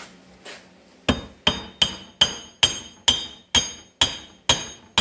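Hammer tapping a metal driver tube over a Ford 8N PTO shaft, driving the shaft down through its new seal into the housing. About ten even, ringing metal-on-metal taps, about two and a half a second, begin about a second in.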